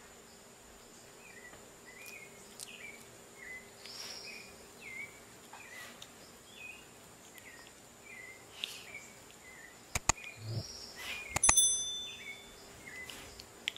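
Faint, high, short chirps that bend downward, repeating about every second. Near the end come a couple of sharp clicks and a short bright electronic chime, the loudest thing here, matching a subscribe-button animation.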